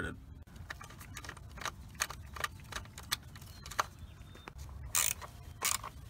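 Quarter-inch ratchet clicking in short, irregular runs as it turns in the small hold-down bolt of a coil-on-plug ignition coil, with two louder, longer rasps near the end.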